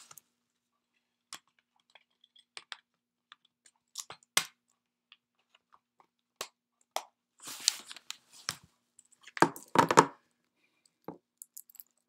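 Handling noises: scattered clicks, taps and brief rustles, with a cluster of louder knocks about nine to ten seconds in.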